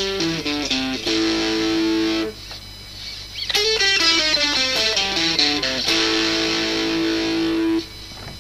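Tokai TST60 Goldstar Sound electric guitar played through an amp: a quick falling run of single notes ending on a held chord, then the same phrase again, the second chord stopped short near the end.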